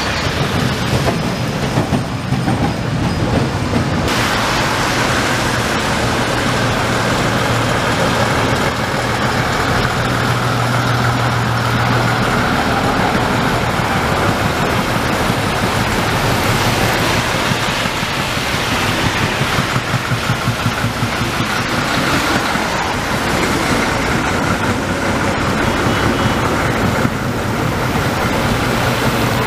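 Street traffic on a wet road: a vintage tram rolls along its rails and a vintage Ikarus bus and cars come by, tyres hissing on the wet asphalt. A steady low hum runs through the first half.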